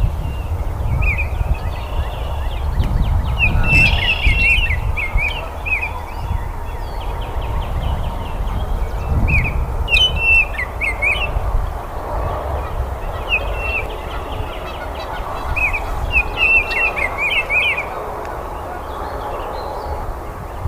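Baltimore oriole singing: short phrases of clear whistled notes that break off and resume several times. A steady low rumble of background noise lies beneath.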